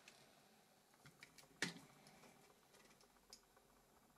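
Near silence with a few faint, small clicks and taps, the clearest just after a second and a half in: a tool and fingers working at a Nokia Lumia 900 phone being taken apart.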